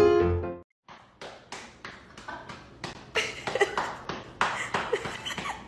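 Piano music cuts off about half a second in. After a short silence comes an irregular run of light taps, about three a second: steps of a dog and a person on a wooden floor, with a couple of brief faint squeaks.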